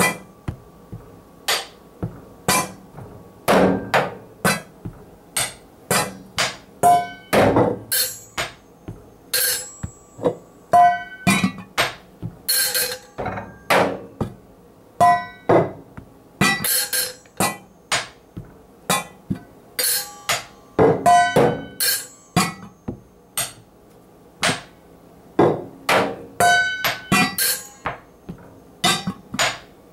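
Kitchen objects being knocked and tapped in an uneven rhythm, about one to two sharp strikes a second, some of them ringing briefly with a metallic tone.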